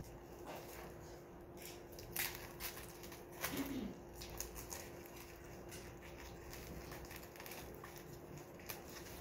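Plastic bubble wrap crinkling and crackling faintly in scattered bursts as it is handled and pulled around the wrapped battery, over a steady low hum.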